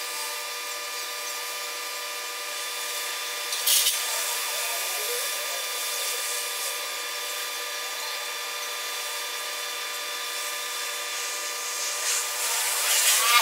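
Oxy-fuel gas welding torch flame hissing steadily against sheet steel, with one short sharp pop about four seconds in and a rougher, louder scraping noise building near the end.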